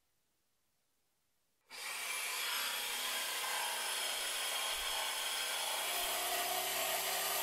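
Bosch jigsaw switching on about a second and a half in and cutting along a straightedge guide through an SPF board, a steady high motor whine over the blade's sawing noise.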